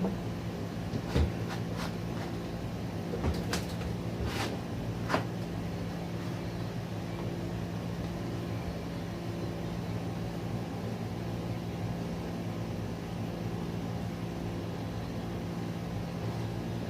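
A few knocks and clicks in the first five seconds as a Honda push mower is tipped onto its side to drain its oil, over a steady low hum.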